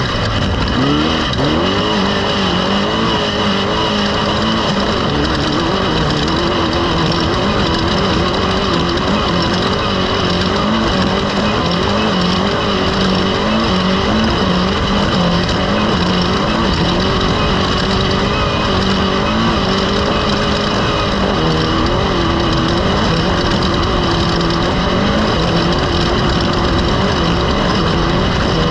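A motor engine running continuously, its pitch wavering up and down, over a steady rushing noise.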